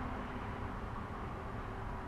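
Steady outdoor background rumble and hiss with no distinct events.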